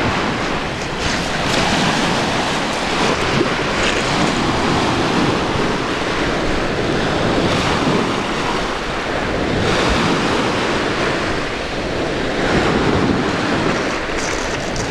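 Baltic Sea surf washing onto a sandy beach, swelling every few seconds as small waves break, with wind on the microphone.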